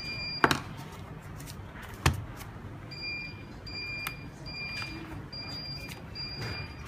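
Electronic beeping from a G1 alarm panel: one short beep, then a run of six evenly spaced beeps starting about three seconds in. Two sharp knocks come in the first couple of seconds and are the loudest sounds.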